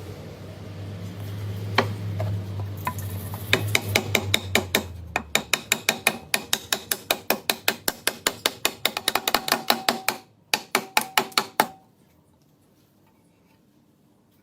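A rapid, even run of sharp mechanical clicks, about four to five a second, with a short break near ten seconds, over a low steady hum that fades out about five seconds in.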